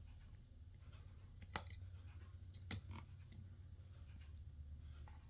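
Near silence: a steady low hum with a few faint clicks, three of them, about one and a half, two and three quarters and three seconds in.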